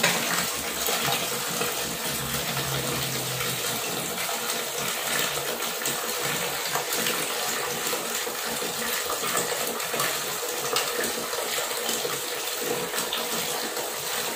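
A stream of tap water runs steadily into a plastic tub already full of water, splashing over plastic toy trucks.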